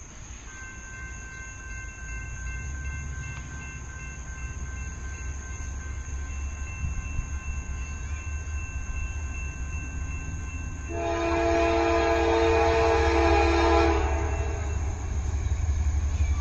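Approaching Norfolk Southern freight train, its low rumble growing louder. About two-thirds of the way in, the lead locomotive sounds one horn blast of about three seconds, a chord of several notes.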